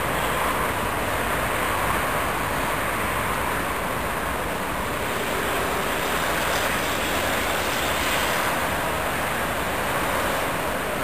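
Freight train approaching behind an electric locomotive, heard as a steady, even noise of the train running on the rails, with no horn or knocks.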